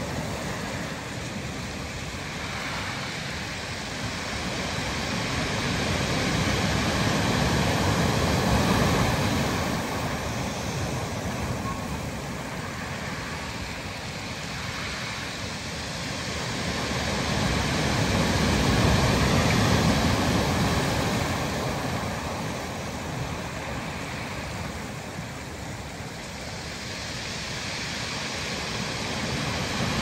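Atlantic surf breaking and washing up over a dark pebble beach, a steady rush of water that swells louder about every ten seconds as each set of waves comes in.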